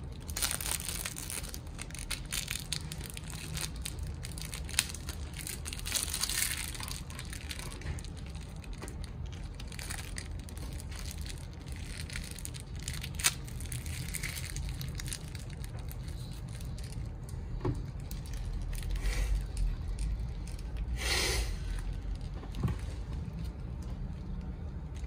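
Thin plastic packaging crinkling and rustling in uneven bursts as a boxed 1:6 scale action figure and its parts are handled, with a couple of sharp plastic clicks.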